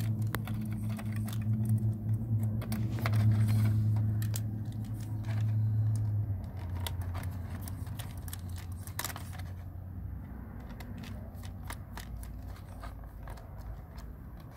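Small clicks and ticks of a precision screwdriver and light plastic parts being handled as the rotor blade screws come out of a small RC helicopter's rotor head. Under them a low steady hum, the loudest sound at first, drops away about six seconds in.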